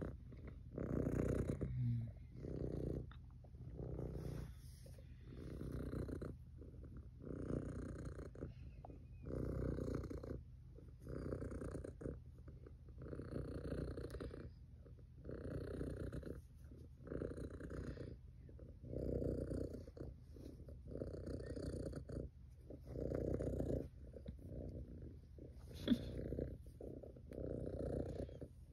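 Tabby cat purring close up: a steady low purr that swells and eases with each breath, about once a second. A single short tick sounds near the end.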